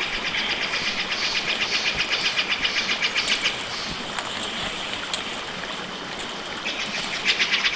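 An animal's rapid pulsed trill, about eight pulses a second, heard through the first few seconds and again near the end, over a steady hiss.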